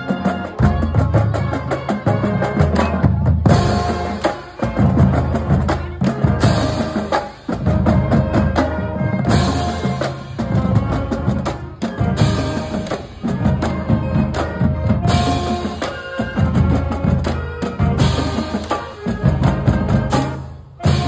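Marching band playing: saxophones and sousaphones carry the tune over bass drums, tenor drums and crashing cymbals, with brief breaks every few seconds.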